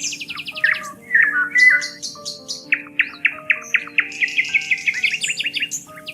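Songbirds singing: fast trills and quick runs of repeated chirping notes, one bird after another, over soft held background tones.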